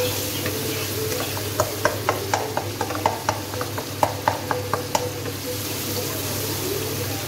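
A wooden spoon stirs and scrapes a cooked-down tomato paste in a nonstick wok, tapping sharply against the pan two or three times a second through the middle seconds. Under it the tomatoes sizzle steadily as they fry.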